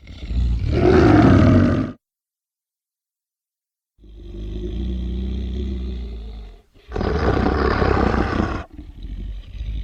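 Werewolf creature sound effects: a loud roar lasting about two seconds, then two seconds of silence. A steady low growl follows, then a second loud roar of about two seconds, and a quieter growl near the end.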